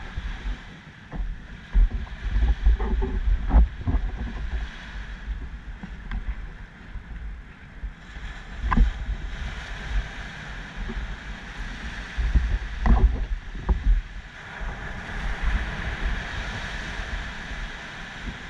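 Wind and road rumble on a camera fixed to a bicycle as it is ridden, with clusters of knocks and rattles from the bike a couple of seconds in, near the middle and about two-thirds through.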